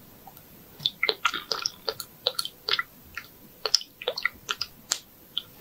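Ear-wash drops squeezed from a plastic dropper bottle into an ear canal, heard close up: a quick run of wet crackling pops and squishes. It starts about a second in and dies away about a second before the end.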